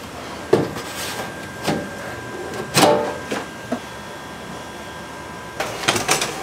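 A steady machine hum with a thin high whine, under a series of sharp knocks and clatters. The loudest knock comes about three seconds in. The hum changes about five and a half seconds in, and a quick run of clatters follows.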